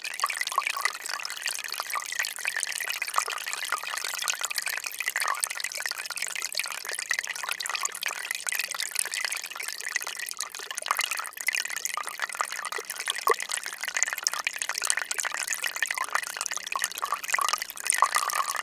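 Melting spring ice on a reservoir: a dense, continuous crackle of countless tiny clicks and ticks, with water dripping and trickling among them.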